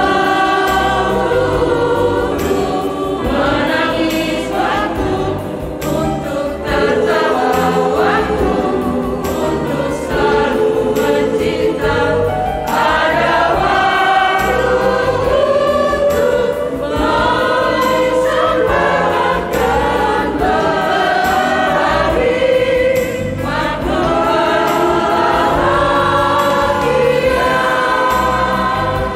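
Women's choir singing a hymn in Indonesian, several voices in harmony, continuous throughout.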